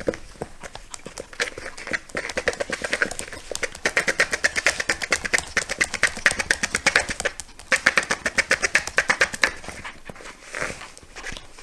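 Maltese puppy growling in several long bursts, each a rapid, even pulsing, while it plays at the phone with its mouth.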